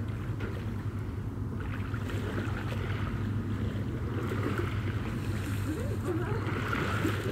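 Wind rumbling on the microphone over lake water lapping and splashing around people wading in.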